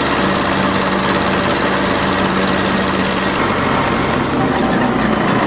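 Farm tractor's engine running steadily at its top road speed of about 40 km/h, with the engine note shifting a little past halfway through.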